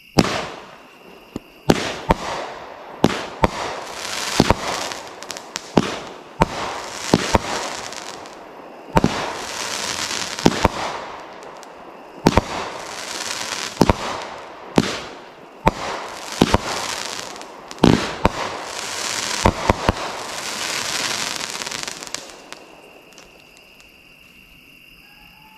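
Dominator 'Desert Oasis' 16-shot 200-gram firework cake firing: a string of sharp shots and bursts begins about two seconds in, with each gold palm break trailing a hiss of crackle. The shots stop about 22 seconds in.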